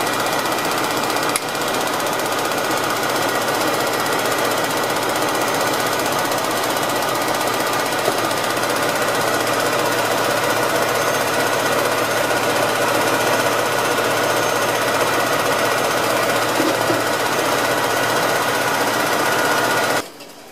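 Heavy truck's diesel engine idling with its air compressor running, building air pressure back up in the air brake system toward the 100 psi pressure protection valve setting. The noise is steady and cuts off suddenly near the end.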